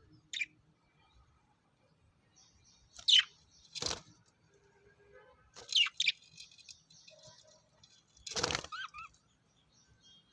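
Lovebirds calling: a handful of sharp, shrill shrieks, some sliding down in pitch, the loudest about three and eight seconds in, with quiet twittering between them.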